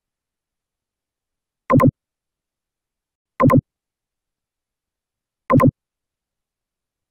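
A short electronic sound-effect blip from the computer, played three times at uneven intervals of about two seconds, each one a quick double pop.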